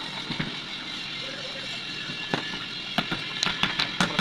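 A series of sharp clicks and light metallic knocks, mostly in the second half, as the housing of a dumper truck cabin motor is fitted and pressed onto its pump body by hand. A steady hiss runs underneath.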